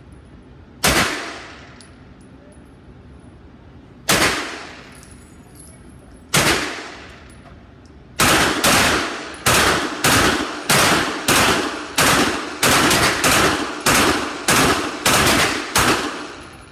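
CZ Scorpion EVO 3 S1 carbine firing 9mm semi-automatic. Three single shots come a second or more apart, then a quick string of about fifteen shots at roughly two a second. Each shot rings out in the enclosed indoor range.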